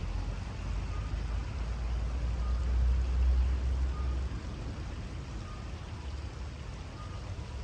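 Riverside outdoor ambience: a low rumble that swells over the first few seconds and eases about four seconds in, over a faint steady hiss. A faint short beep repeats about every second and a half.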